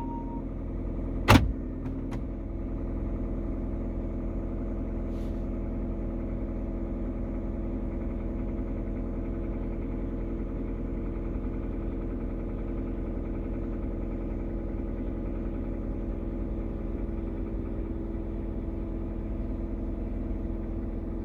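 Third-generation Kia Rio engine idling steadily, recorded for a knock that the owner takes for an engine fault. One sharp bang about a second in.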